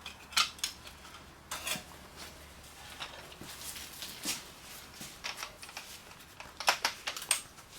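Scattered metallic clinks and clanks of steel parts and tools being handled, a few single knocks spread out and then a quick cluster near the end.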